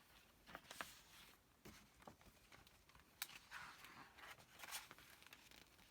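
Faint paper rustling and a few soft clicks as a picture book's page is turned, otherwise near silence.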